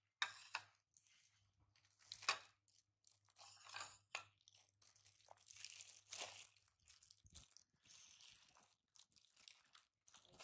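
Clear plastic bag crinkling and rustling in a string of irregular bursts as it is handled and opened, the sharpest crackles just after the start and about two seconds in.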